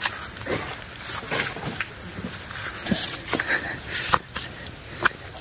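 A steady chorus of insects buzzing in a high band, with irregular footsteps and rustles, the sharpest about three, four and five seconds in.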